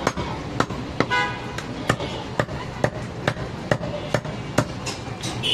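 Cleaver chopping through goat ribs and meat on a wooden log chopping block, in steady strokes about two a second.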